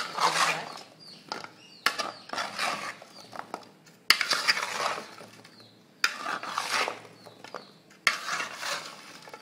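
Spoon scraping around a large metal bowl, tossing and mixing syrup-coated fried dough cubes in five sweeping strokes about two seconds apart, each starting sharply and trailing off.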